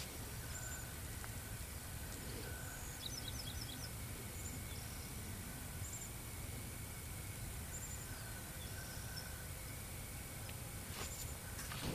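Outdoor ambience: a steady low background rumble with faint, scattered bird chirps, including a quick run of four high notes about three seconds in.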